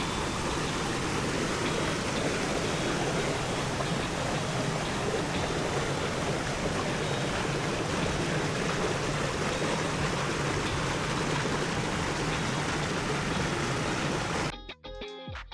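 Steady rush of waterfall water. It cuts off abruptly near the end, where guitar music starts.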